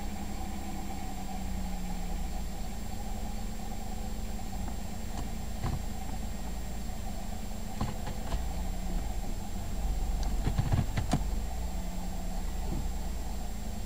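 Chevrolet 3800-series 3.8 L V6 in a 1998 Camaro idling with a noise the owner suspects is a failing water pump or a bad pulley bearing, a sort of rattle heard while the engine is cold. A few sharp clicks cut through, several close together about ten seconds in.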